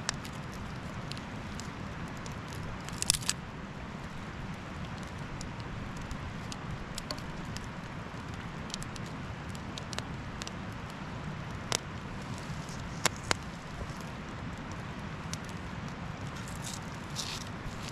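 Small campfire of birch bark and kindling crackling, with scattered sharp pops, a few of them in pairs, over a steady background hiss.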